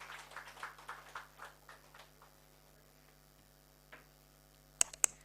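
Faint, scattered clapping from an audience, about three or four claps a second, dying away after about two seconds. Then near quiet over a steady electrical hum, with two sharp taps near the end.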